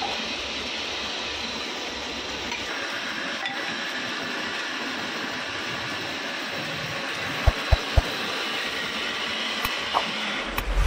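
Wood lathe spinning a wooden spindle under a hand chisel, giving a steady rasping hiss of wood being cut. Three quick low knocks come close together about seven and a half seconds in.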